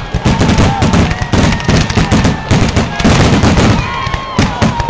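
Aerial fireworks going off in quick succession: a loud, dense run of bangs and crackling as shells burst and their stars break apart.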